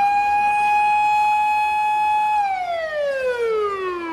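Emergency vehicle siren wailing loudly: one long tone that holds steady, then glides smoothly down in pitch from about two and a half seconds in.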